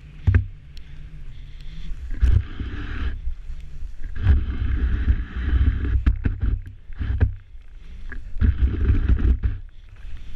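Skis swishing through deep powder snow, picked up by an action camera's microphone as several surges of hiss and low wind rumble that rise and fall with the turns, with a few sharp knocks in between.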